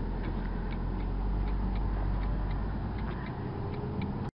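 Car turn-signal indicator ticking evenly, about three clicks a second, over the low hum of the engine and road inside the cabin. The sound cuts off suddenly near the end.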